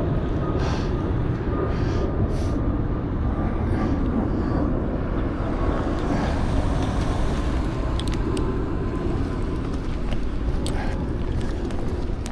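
Skate wheels rolling over pavement with wind rumbling on the microphone: a steady loud rumble, with light regular clicks about every three-quarters of a second for the first five seconds and scattered sharper clicks later.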